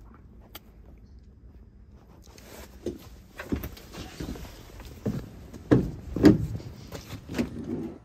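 Rustling handling noise with a string of short, dull knocks and thumps, the two loudest a little past halfway, as the camera is moved about; the first couple of seconds are quiet.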